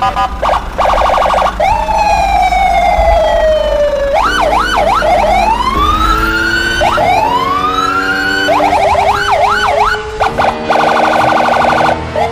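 Electronic police siren cycling through patterns: a fast pulsing warble, a long slowly falling tone, quick up-and-down yelps and rising wails. A low rumble runs underneath.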